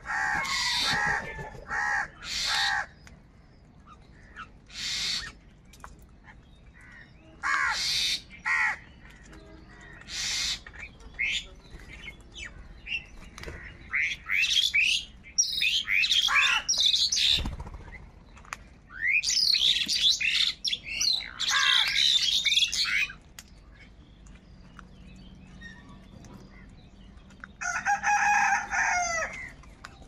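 House crows calling in loud bouts of harsh caws, several birds overlapping at times, with quieter gaps between the bouts and some higher, chirpier calls mixed in.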